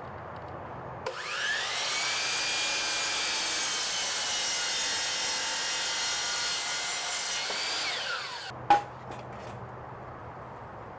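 Electric woodworking power tool working teak: its motor spins up with a rising whine about a second in, runs steadily for about six seconds, then winds down with a falling whine. A sharp knock follows shortly after.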